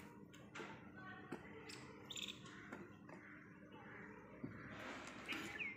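Faint scattered taps and clicks as pieces of fresh coconut are dropped into a stainless-steel mixer-grinder jar, with a short bird chirp near the end.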